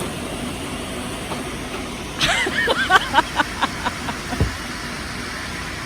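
A quick run of about ten hard, ringing knocks: pieces of split firewood clattering against one another as they are bagged. The knocks start about two seconds in, last about two seconds, and are followed by a single low thump, over a steady hum of traffic.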